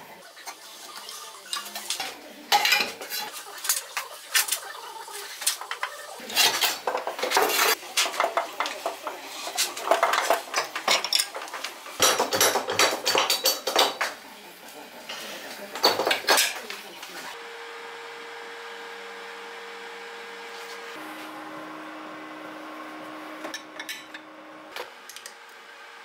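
Steel parts and tools clanking and clinking against a cast-iron bench vise and metal workbench as a small drill-press vise and a steel bar are handled, in repeated bursts. After about seventeen seconds it gives way to a quieter steady tone that changes pitch a couple of times.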